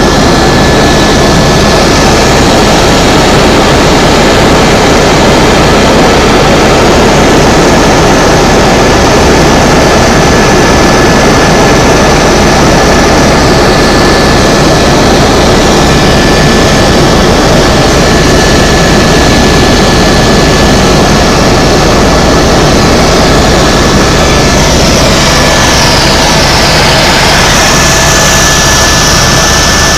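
Tour helicopter in flight: engine and rotor noise, loud and steady throughout, with a thin high whine running through it.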